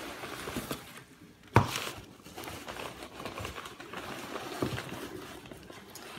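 Packing paper and bubble wrap crinkling and rustling as paper-wrapped bundles are handled and pulled from a cardboard box, with one sharp thump about a second and a half in.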